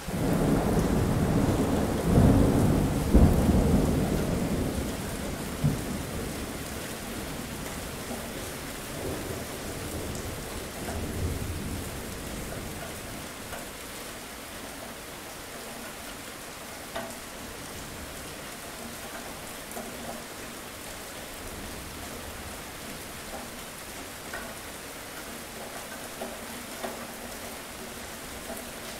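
Thunderstorm: a peal of thunder breaks in suddenly, rolls loudest a few seconds in, then fades, with a weaker rumble about eleven seconds in. Steady rain falls throughout.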